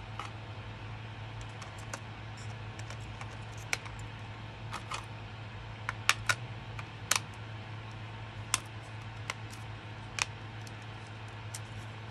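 Irregular sharp plastic clicks and taps from handling a portable CD player's battery compartment while a stick-shaped rechargeable battery is fitted and the hinged battery door is worked. The clicks are loudest around six to seven seconds in. A steady low hum runs underneath.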